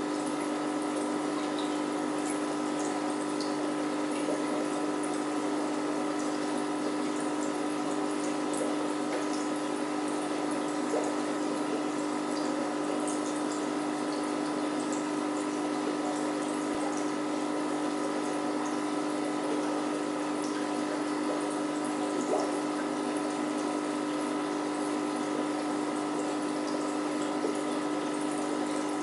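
Aquarium filter running: a steady hum with a constant wash of bubbling, moving water, and scattered tiny pops and ticks.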